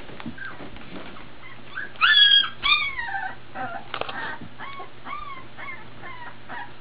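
Young Labrador retriever puppies whimpering: a loud, high squeal about two seconds in, then a string of shorter whines, each rising and falling in pitch.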